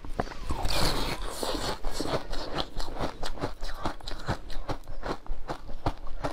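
Eating sounds: a crunchy bite into a piece of pink food about a second in, then steady chewing with quick, crisp clicks several times a second.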